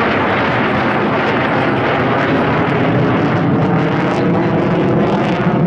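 Formation of Royal Netherlands Air Force F-16 fighters and an F-35A passing overhead: a loud, steady jet-engine roar, with a ragged crackle coming into it over the last two seconds.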